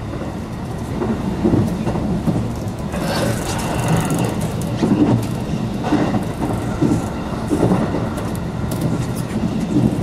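Electric commuter train running along the track, heard inside the front car: a steady low rumble of wheels on rail with irregular knocks, and a brief higher hiss and squeal about halfway through.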